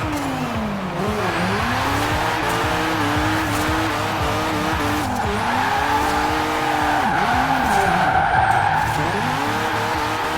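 Mazda RX-7 Spirit R's turbocharged rotary engine revving up and down repeatedly while the car drifts, with tyre squeal building from about halfway through.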